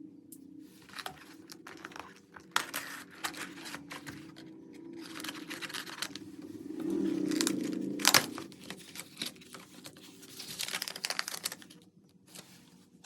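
Packaging being handled: irregular crinkling and tearing rustles with scattered clicks, and one sharp loud click about two-thirds of the way through, over a faint low hum.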